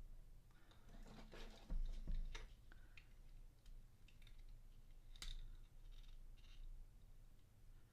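Small clicks and taps of a plastic action figure being handled and pressed together, with a couple of louder knocks about a second or two in and a sharp click about five seconds in.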